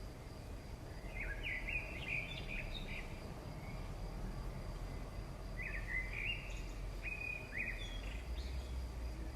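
Birds chirping: two short runs of quick twittering notes, about a second in and again around six seconds in, over a steady background hiss and a thin, steady high tone.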